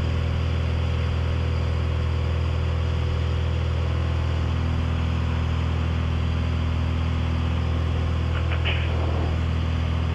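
Cessna 182's piston engine and propeller droning steadily at climb power, heard inside the cockpit.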